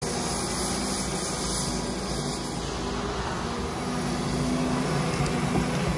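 Cat 330 hydraulic excavator's diesel engine running steadily while the machine works, lifting a bucket of soil.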